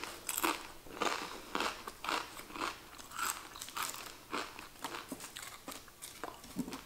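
Close-up chewing of a kettle-cooked potato chip: crisp, irregular crunches about two or three times a second.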